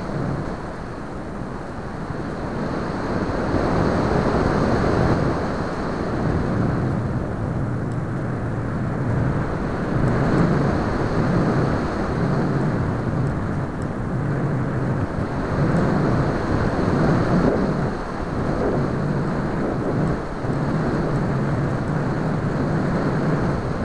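Airflow rushing over the microphone of a camera mounted on a foam Multiplex Easy Glider RC model in flight: a continuous low rumbling noise that swells and fades as the model banks and changes speed.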